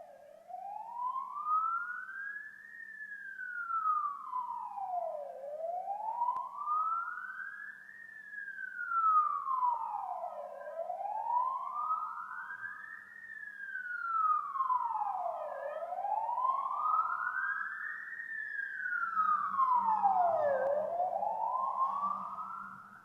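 Police siren wailing in a slow, even rise and fall, about five seconds per up-and-down sweep. It sweeps four times and is rising again when it stops. A faint low rumble joins underneath about three quarters of the way through.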